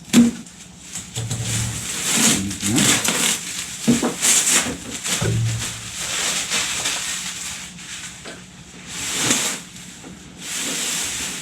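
Packing material being handled and pulled around: irregular rubbing and rustling of foam and plastic, in a string of uneven bursts.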